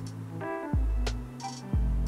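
Background electronic music: held synth bass chords with a deep kick drum about once a second and light high ticks above.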